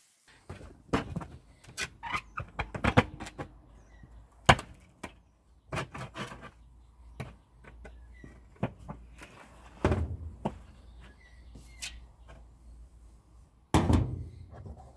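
Thin light-gauge tin casing of a hot water cylinder being pried open along a freshly cut seam with a hand tool: irregular knocks, clicks and scrapes of the sheet metal, with a longer, louder clatter near the end as the shell springs open over the insulation.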